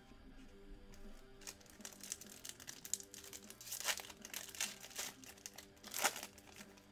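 Foil wrapper of a Panini Select basketball card pack being torn open and crinkled by hand: a run of irregular crackles, the sharpest about four and six seconds in.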